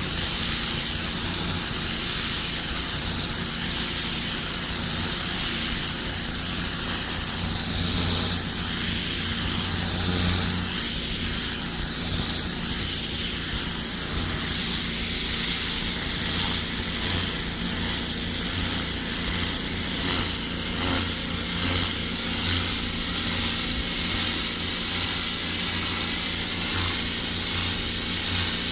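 Pressure washer jet spraying onto a concrete driveway: a loud, steady hiss over the even hum of the washer's motor.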